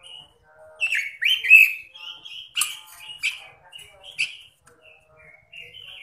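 Red-billed leiothrix (Pekin robin) singing a run of loud, quick whistled phrases with a few sharp notes, turning softer after about four and a half seconds.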